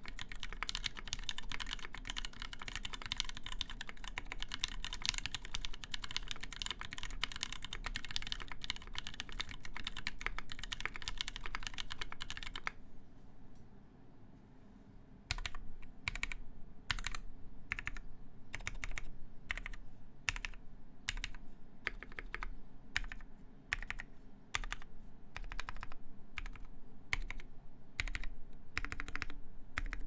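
Mechanical keyboard with lubed Kailh NK Cream switches on a full aluminium plate, under GMK keycaps, being typed on fast and steadily. About thirteen seconds in the typing stops. After a brief lull, single keys are pressed one at a time, about two clicks a second, to the end.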